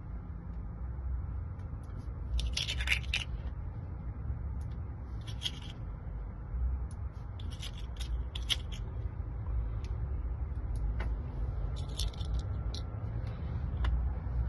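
Small metallic clicks and scrapes from a lock cylinder and its tiny pins being handled while the lock is rekeyed, in scattered short bursts over a steady low hum.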